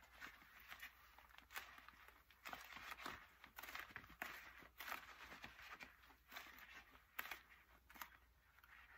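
Dry, paste-coated sponge squeezed and folded in rubber-gloved hands, giving a quiet run of irregular crisp crunches and crackles as the dried paste breaks up.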